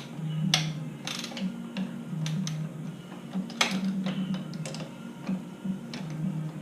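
Ratchet with a 6 mm Allen socket clicking in short, irregular spurts as it backs out a motorcycle fuel tank's mounting bolt, with background music underneath.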